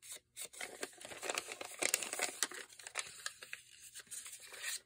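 Folded graph paper crinkling and rustling as it is handled, opened out and smoothed flat by hand, a quick run of short scratchy strokes.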